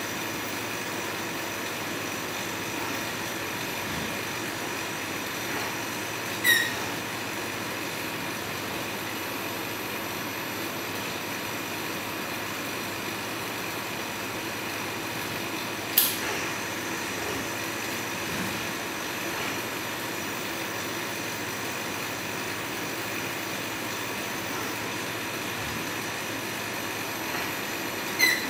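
Desktop mosaic-tile assembly robot running with a steady mechanical hum as it picks and places tiles, broken by three short sharp sounds: a brief high squeak about a third of the way in, a sharp click about halfway, and another squeak near the end.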